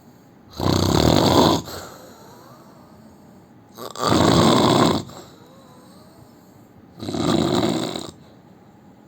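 A man snoring: three snores about three seconds apart, each lasting about a second.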